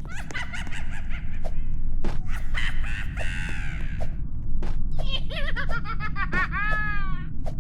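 An unidentified animal calling in three bouts of quick, arching cries, each a second or two long, the last a rapid run of rising-and-falling notes. A steady low rumble and scattered clicks lie underneath.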